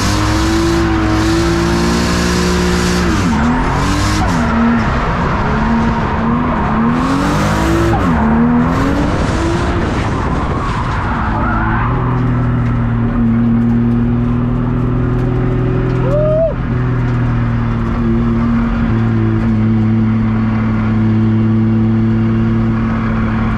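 BMW E36 drift car's engine heard from inside the cabin, revving up and down while the tyres squeal as the car slides through corners, the Achilles tyres struggling for grip. About halfway through the squealing fades and the engine runs more steadily at lower revs.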